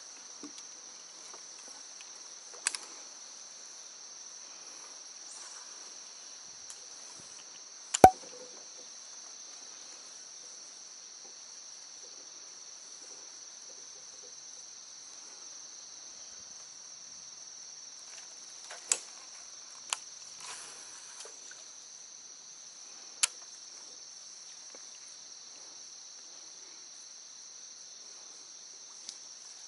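Steady, high-pitched insect chorus. A few sharp knocks and clicks break in, the loudest about eight seconds in, others near 3, 19, 20 and 23 seconds.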